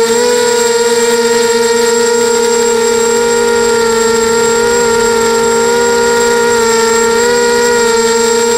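QAV280 FPV quadcopter's brushless motors whining steadily in flight, heard close up from on board; one held pitch with its overtones that wavers slightly as the throttle shifts between about five and eight seconds in.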